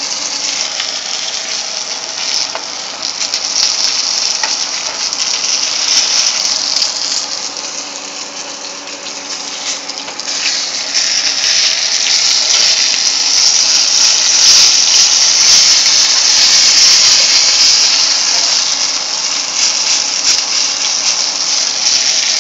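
Flour-coated squirrel pieces pan-frying in shallow oil, a steady sizzle. It grows louder from about halfway through.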